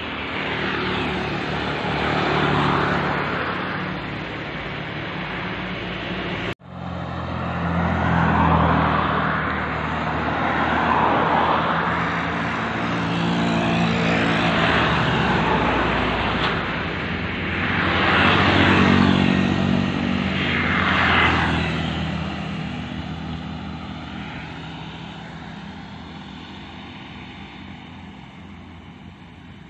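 Road vehicles passing one after another, each one's engine and tyre noise swelling and fading. There is a brief cut-out about six and a half seconds in, and the sound dies away over the last several seconds.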